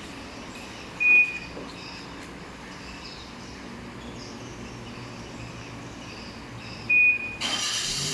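Aftermarket car alarm system on a Perodua Myvi giving two short high beeps about six seconds apart over a steady low background. Near the end a louder rushing noise sets in.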